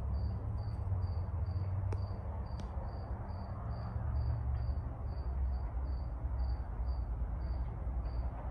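A cricket chirping steadily, short high chirps about twice a second, over a low steady rumble.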